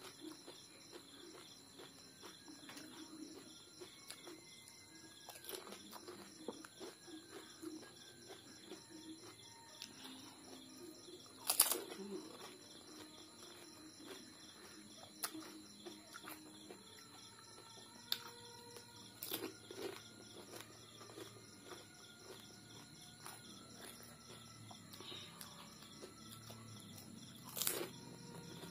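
Sporadic crisp cracks and crunches as hollow pani puri shells are poked open and chewed, the loudest about 11 seconds in and again near the end. Faint steady chirping of insects and birds carries underneath.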